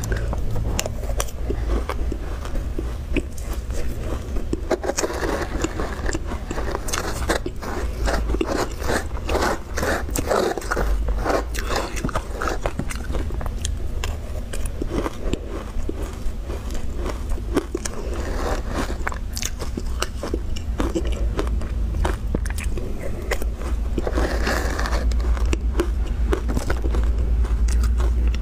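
Shaved ice mixed with milk powder being bitten and chewed, with dense, irregular crunching that goes on throughout.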